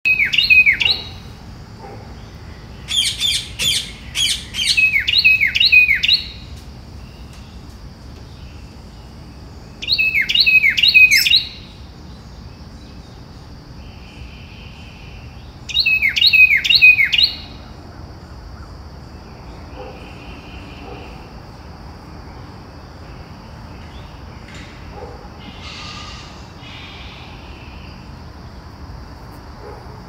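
Ringneck parakeets squawking in loud runs of shrill, quickly falling calls, four runs of several calls each spread over the first half, then only faint calls over a steady hiss.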